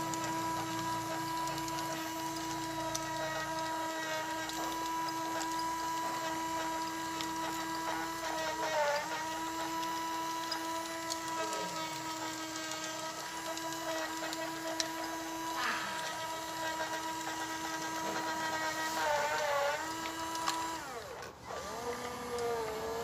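Electric motor and gear pump of a homemade PVC hydraulic RC excavator running with a steady whine. The pitch sags briefly twice, about nine seconds in and again near the end, as the hydraulics take load, and the motor stops shortly before the end.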